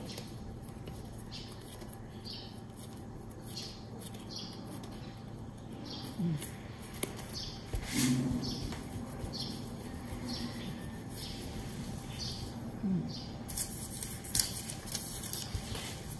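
Soft, repeated rustling of yeast bun dough being pinched shut and then rolled under the palm on a silicone pastry mat, with a steady low hum underneath.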